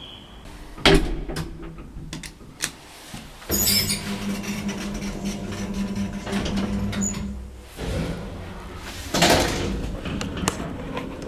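Lift doors banging shut about a second in, then a steady hum for about four seconds as the lift runs, and another clattering door slam near the end.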